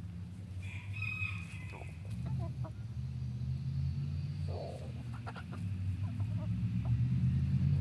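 Chickens clucking with scattered short calls, and a rooster giving a short crow about a second in, over a steady low rumble that grows louder toward the end.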